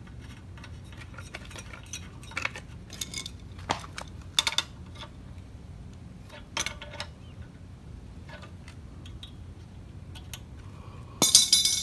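New spark plug being fitted and tightened with a wrench in a McLane lawn edger's engine: scattered short metallic clicks and clinks, then a louder clatter lasting about half a second near the end.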